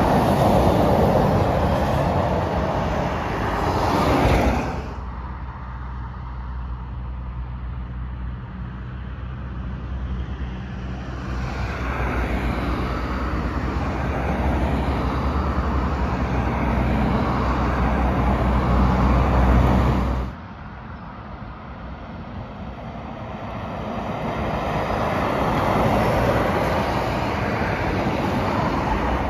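Articulated lorries and cars passing close by on a road: tyre noise and the drone of diesel engines, swelling as each vehicle goes by. The sound drops off suddenly about five seconds in and again about twenty seconds in, then builds again with the next vehicle.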